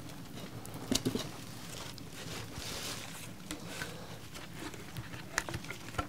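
Hatchet chopping and shaving the edge of a wooden board: a few sharp knocks, about a second in and again near the end, and a longer scraping cut in between, over a crackling campfire.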